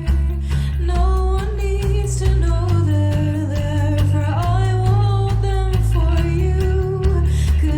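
A song playing: a sung vocal line over guitar and a steady bass.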